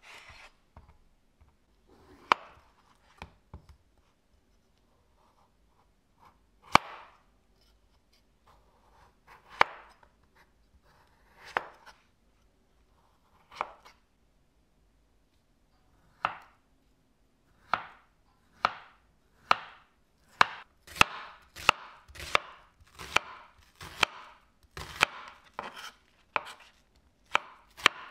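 Kitchen knife cutting vegetables against a wooden cutting board: a few slow, separate cuts at first, then steady slicing through an onion that quickens to nearly two strokes a second in the second half.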